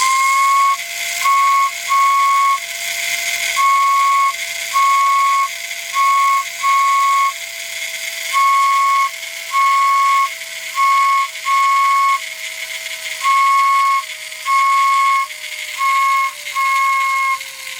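Marx Mercury wind-up toy locomotive's built-in whistle: a squirrel-cage fan driven by the clockwork motor blows it, and a cam gear switches it on and off, so it toots in an uneven pattern of short and long notes, about one a second. Underneath are a steady lower hum that slowly sinks in pitch and the whirr of the clockwork gears.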